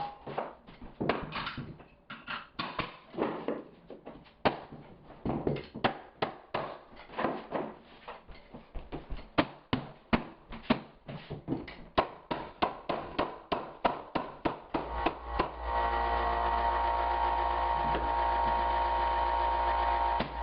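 Hardwood flooring being nailed down: a quick, irregular run of sharp knocks and taps, several a second, from a mallet and a floor nailer seating the boards. About three-quarters of the way through the knocking stops and a steady humming sound takes over.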